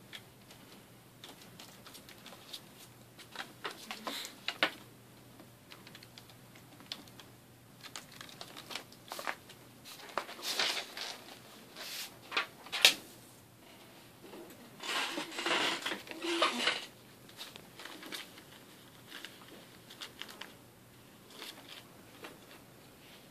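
A ferret scrambling over loose sheets of paper: scattered rustles and crinkles of paper with light taps and clicks, the longest stretch of rustling about two-thirds of the way through.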